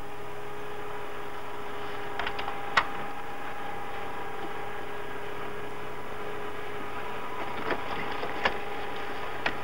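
Steady machine hum with a few faint held tones in it. Sharp metallic clicks of the ground crew handling the aircraft's camera magazines come in a cluster between two and three seconds in, the loudest about three seconds in, and again near the end.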